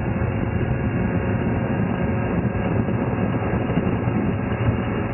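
Bayliner Ciera Sunbridge 2155 cruiser running steadily underway: a constant low engine drone under a rushing noise of wind and water.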